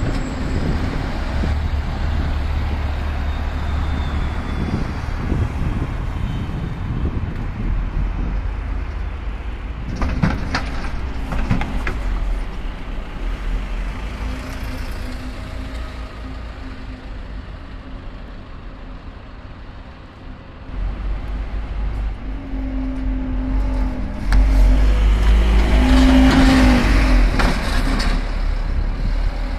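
Diesel double-decker buses running at a bus station, a steady low engine rumble throughout, with a few short sharp sounds about ten seconds in. Near the end a Scania OmniCity double-decker pulls away close by, its engine growing to the loudest part.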